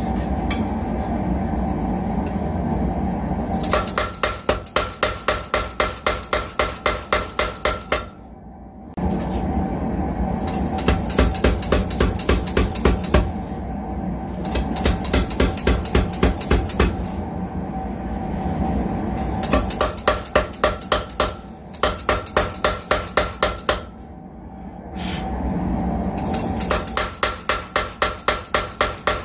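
Home-built Bulldog 15 mechanical power hammer striking hot steel in repeated runs of rapid blows, about four a second, with the machine running steadily between runs. It comes in four runs, each of a few seconds.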